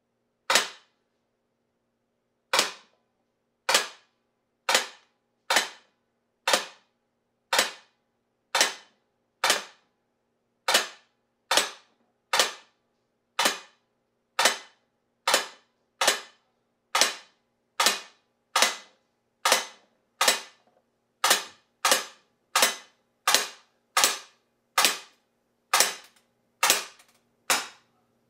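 Umarex Steel Force CO2 BB rifle fired semi-automatically, about thirty sharp single shots. They come roughly one a second at first and quicken towards the end.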